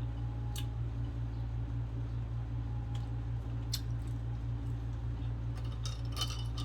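Soft, wet mouth clicks and smacks of someone eating, a few scattered and a small cluster near the end, over a steady low hum.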